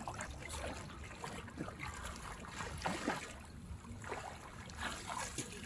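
Shallow seawater sloshing and lapping around a wading man, with wind on the microphone and a small splash about three seconds in as he ducks under the surface.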